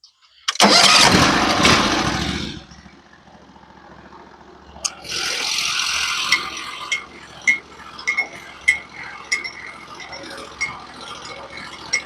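Sawmill engine on a Norwood HD36v2 portable sawmill starting, running loud for about two seconds, then settling to a low idle. It rises again briefly about five seconds in, followed by a series of sharp ticks.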